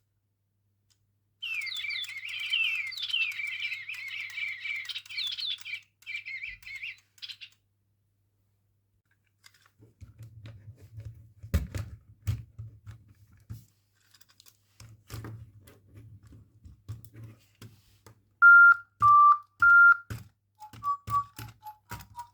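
Electronic toy bird chirping in quick rising and falling tweets for about six seconds. A low hum with scattered clicks follows, then a few loud, single electronic tones near the end.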